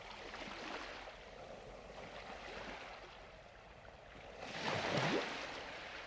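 Faint rushing and splashing of sea water, with one louder surge of wash about five seconds in.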